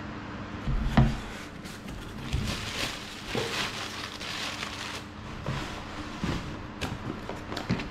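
Hands opening a cardboard shipping box: a knock of the cardboard about a second in, then crumpled kraft packing paper rustling and crinkling as it is pulled out, followed by a few light taps and knocks of cardboard.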